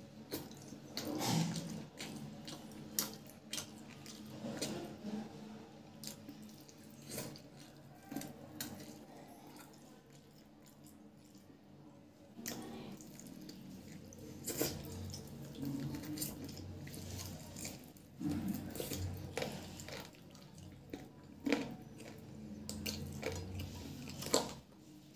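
Close-up eating sounds: wet chewing and lip smacks, with fingers squishing curry and rice on the plate, heard as a string of short, irregular wet clicks and squelches over a faint steady hum.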